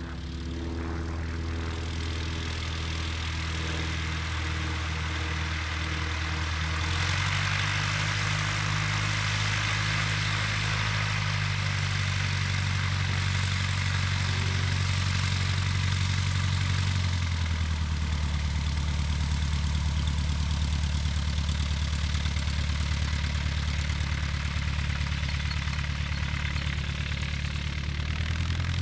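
Cessna 150F's Continental O-200 four-cylinder engine and propeller running at low taxi power: a steady low drone whose pitch shifts a few times, getting a little louder about seven seconds in.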